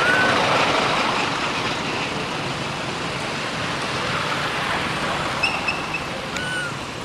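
Steady noise of passing road traffic, loudest at the start and slowly fading, with a brief high squeak just after it begins and a few more short high squeaks near the end.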